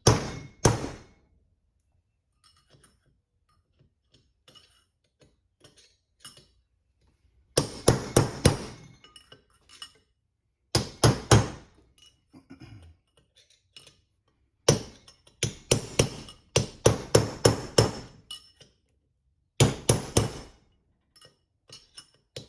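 Hammer striking a long steel punch to drive an inner bearing race out of a Toyota 8-inch rear differential housing. Sharp metallic blows come in quick runs of several strikes, with short pauses between the runs.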